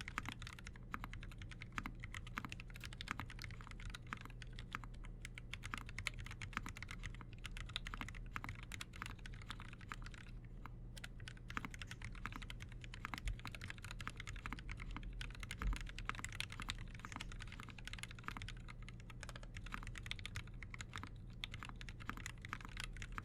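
Continuous typing on a custom mechanical keyboard with lubed and filmed Gateron Black Ink linear switches, a brass plate and PBT keycaps: a dense stream of key strokes, with a short pause about ten seconds in and one louder stroke near the middle.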